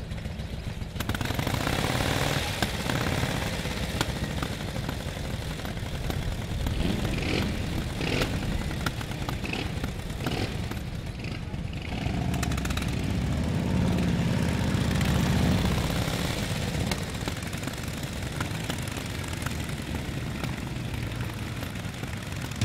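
Vintage motorcycle engines running, a continuous low rumble with rapid firing clicks that grows louder about a second in and swells again about halfway through.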